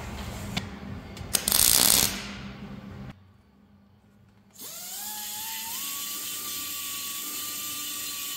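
Pneumatic die grinder on an air hose spinning up with a rising whine, then running at a steady high pitch with a hiss of exhaust air as it works inside a welded exhaust tune pipe. Before it come a few clicks and a short loud burst of hiss, then a moment of near silence.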